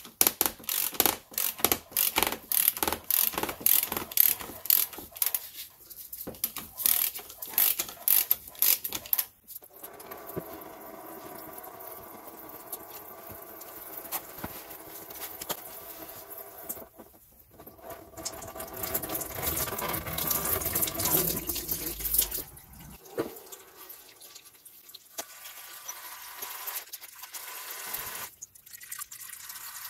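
A run of quick clicks from the tool turning a 10 mm hex bit as the drain plug on a ZF 8HP70 automatic gearbox's plastic sump is undone. About ten seconds in, the automatic transmission fluid starts pouring out of the drain hole in a steady stream, easing off later with a couple of brief breaks.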